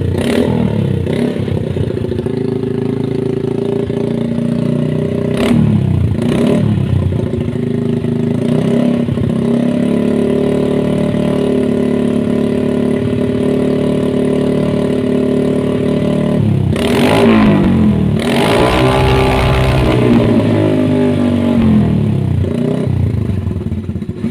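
Byson motorcycle engine and exhaust being revved while standing: a few quick throttle blips, then held at a steady raised speed for several seconds. Two harder revs come about 17 and 19 seconds in, and it drops back toward idle near the end.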